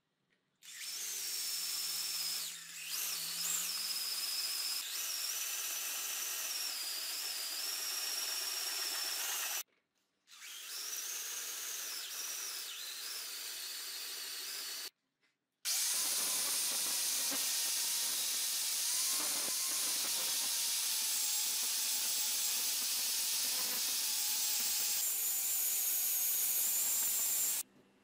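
Electric drill with a twist bit boring through a flat steel bar held in a vise. The motor whine has a wavering pitch, in three runs separated by brief silences.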